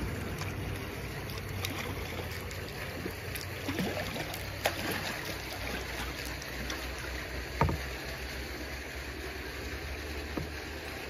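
Kayak paddle strokes on calm canal water: blades dipping and water dripping, with a few short sharp splashes about four and a half and seven and a half seconds in, over a steady low hum.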